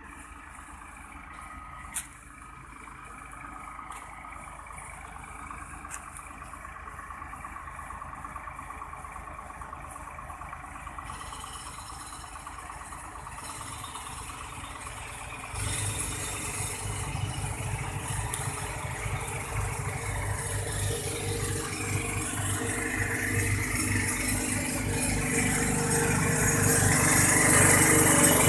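Water pump motor running steadily, growing louder, with a sudden step up in level about halfway through. A single sharp click about two seconds in.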